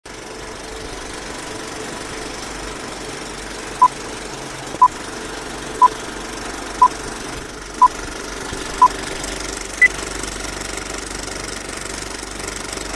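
Old film projector running with a steady clattering whir, under a film-leader countdown: six short beeps one second apart, then a single higher-pitched beep a second later.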